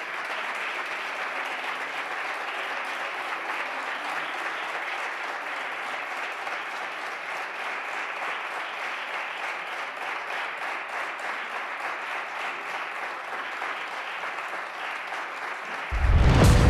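Steady applause from a chamber of standing parliamentarians clapping. Near the end, loud music abruptly takes over.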